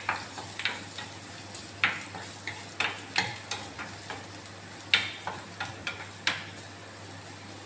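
Spatula scraping and knocking against a frying pan as chopped vegetables are stir-fried, in irregular sharp strokes over a faint sizzle. The strokes stop about six and a half seconds in.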